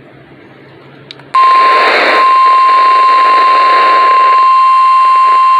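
Faint radio hiss, then about a second in the NOAA Weather Radio 1050 Hz warning alarm tone comes on loud and holds one steady pitch over the hiss. It is the weekly test of the tone that switches on weather alert receivers.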